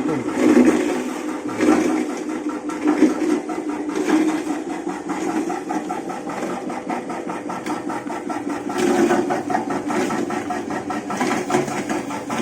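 Herbal tea leaf chopping machine running steadily, its motor-driven cutter making a fast, even mechanical rattle.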